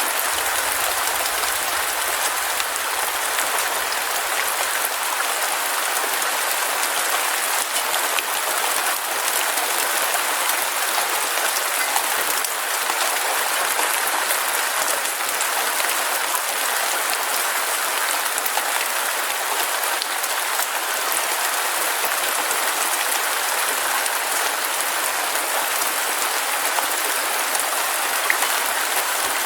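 Heavy rain falling steadily, a dense even hiss of many drops pattering on surfaces.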